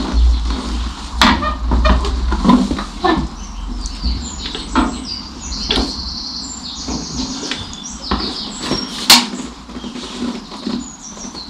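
The brake pedal and linkage of a 1955 Fordson Major tractor being worked by foot to check the movement of the freshly fitted brake shoes and drum: a series of knocks and clicks, with high squeaking in the middle.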